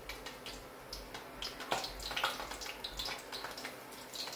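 Battered acacia flower cluster frying in hot oil: a steady sizzle with irregular crackles.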